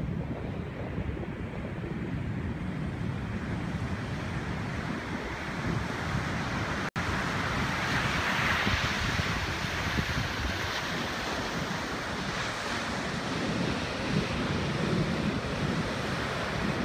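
Ocean surf breaking and washing up the beach, a steady rushing hiss, with wind buffeting the microphone. A brief dropout about seven seconds in; after it the surf is louder.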